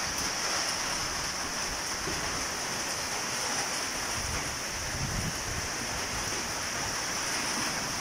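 Rain falling in a strong wind, a steady hiss, with gusts buffeting the microphone in low rumbles about five seconds in.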